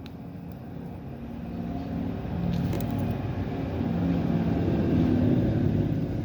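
A car engine running, growing steadily louder over the first few seconds and then holding.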